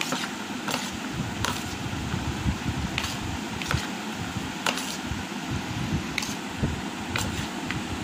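Metal spoon stirring chopped fruit in a bowl, with irregular light clicks of the spoon against the bowl, over a steady background hiss.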